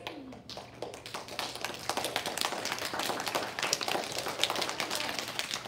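Audience applauding with dense, irregular clapping that starts about half a second in and thins out near the end.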